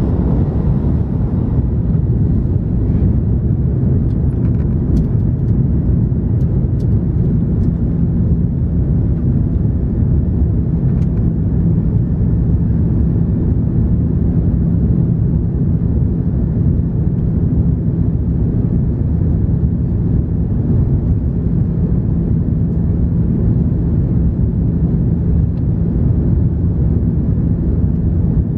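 Steady low drone inside the cabin of an Airbus A330-300 climbing after takeoff: the GE CF6-80E1 turbofans at climb power and rushing airflow, heard through the fuselage.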